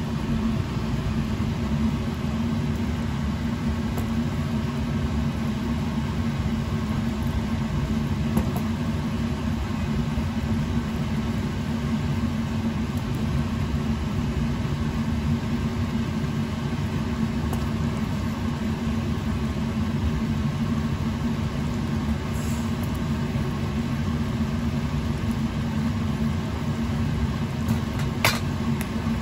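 Steady low hum and rumble of kitchen cooking equipment running, with a couple of light metal clinks near the end as sauce is ladled over a chicken in a wok. It cuts off suddenly at the end.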